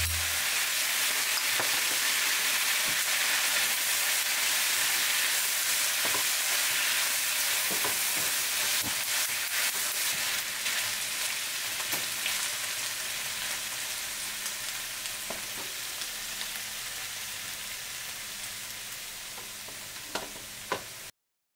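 Pork, eggplant and onion sizzling in a nonstick frying pan just after the sauce goes in, with the scrape and tap of a spatula stirring now and then. The sizzle slowly dies down and then cuts off near the end.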